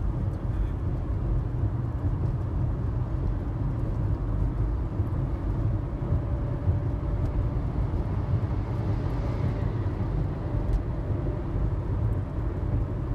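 Steady low rumble of a car's engine and tyres on the road, heard from inside the moving car's cabin, with a faint steady hum running through parts of it.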